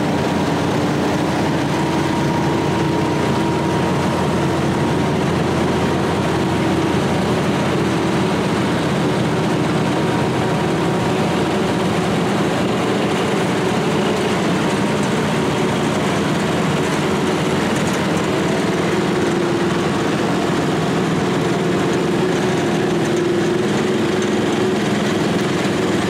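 Garden tractors' small engines running steadily as a line of them drives past one after another.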